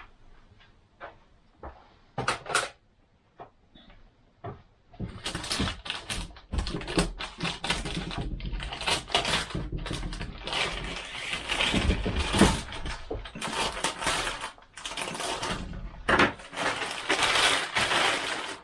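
Plastic wrapper crinkling and rustling as it is cut and pulled off a telescopic pole. A few scattered clicks come first, then dense crackly handling noise from about five seconds in.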